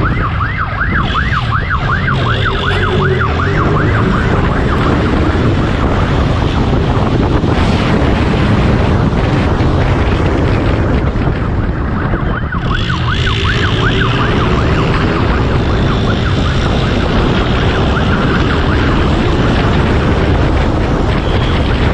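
Police siren in a fast yelp, rising and falling about four times a second, over heavy, steady wind and road noise from the chasing vehicle. The siren fades out after a few seconds and comes back briefly about halfway through.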